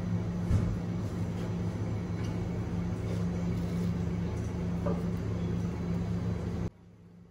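Steady low machine hum with a rumble, cutting off abruptly near the end.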